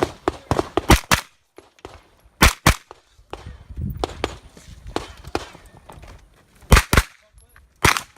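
JP Rifles GMR-15 9mm carbine firing in quick strings during a competition stage: a fast run of about six shots in the first second and a half, a pair about two and a half seconds in, a pair near seven seconds and another shot near the end. A quieter rustle of movement fills the gap between the strings.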